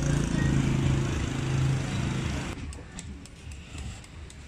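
An engine runs steadily with a low hum for the first two and a half seconds, then cuts off abruptly. After that come light, sharp knife strokes against a whole green mango as it is scored into shreds, about three a second.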